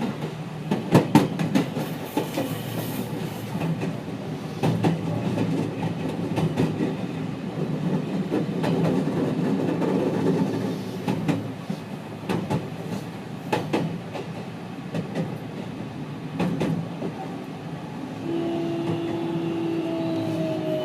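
JR West 207 series electric train car running, heard from inside: steady rumble with repeated clicks of the wheels over rail joints. Near the end the traction inverter's tone comes in as several parallel notes sliding slowly down in pitch as the train brakes. In this car one end's inverter modulation is out of step with the other's, so the two sound together as a chord-like whine.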